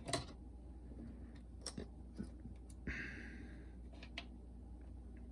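Light clicks and taps of small metal and plastic parts being handled during disassembly, with a brief scraping rustle about three seconds in.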